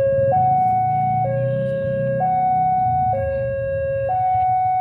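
Railway level-crossing warning alarm: an electronic two-tone signal switching between a lower and a higher tone about once a second, sounding to warn that a train is approaching, over a low rumble.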